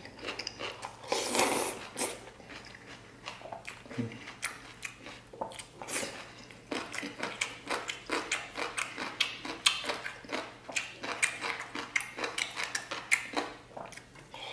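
A person eating noodles: a slurp about a second in, then steady chewing with many short, crisp clicks several times a second.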